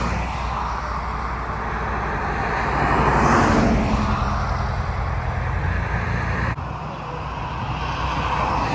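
Highway traffic passing: tyre and engine noise of cars going by. One car swells up and passes close about three seconds in, its pitch falling as it goes.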